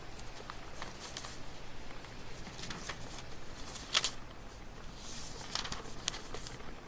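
Library room ambience: scattered soft rustling and small handling noises, with a sharper click about four seconds in, over a faint steady low hum.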